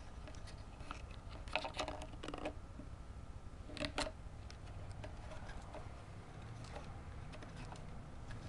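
A few small, sharp clicks and knocks, bunched together about one and a half to two and a half seconds in and again about four seconds in, over a faint low hum.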